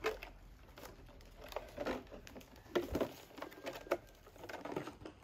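A homemade fruit picker, a cut plastic bottle on a wooden pole, rustling through apple-tree branches and leaves. Irregular sharp clicks and knocks sound as it catches on twigs and fruit.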